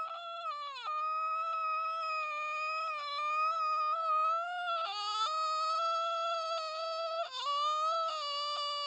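A person making a weird high-pitched sound with the voice, held almost without a break and wavering slightly, with brief drops in pitch about half a second in, just past the middle and about three quarters through.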